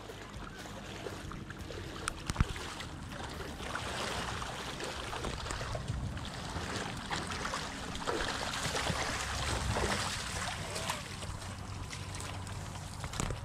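Water sloshing and splashing as a person wades through shallow water dragging a cast net loaded with mullet to shore, with one sharp knock about two seconds in.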